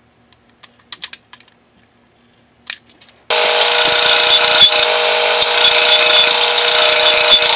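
A few light clicks of a steel block being handled, then about three seconds in a power sander starts up suddenly and runs steadily, grinding the steel block held against it to shape.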